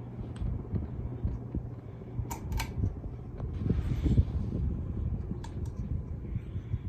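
CEC Casablanca Mercury copy ceiling fan running with an uneven low rumble, the sort of noise its bad bearings make. A couple of sharp clicks come about two and a half seconds in.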